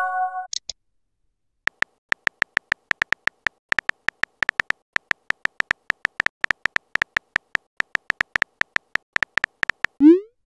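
Simulated phone-keyboard typing clicks, short and crisp, several a second, as a message is typed out in a texting app. A rising swoosh near the end marks the message being sent. At the very start, a short chime fades out and a brief high blip follows.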